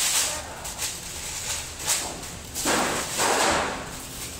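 Large plastic sheet rustling and swishing as it is shaken out and pulled over mounds of dough, with a louder, longer rush of crinkling plastic near the middle.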